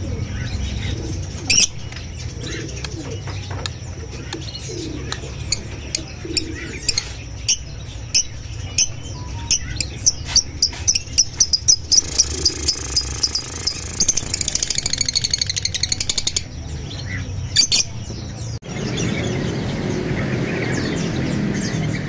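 Caged birds chirping: sharp, high-pitched chirps, many in quick runs in the middle, over a steady low hum. Near the end the sound cuts abruptly to a busier, fainter chorus of chirping from many birds.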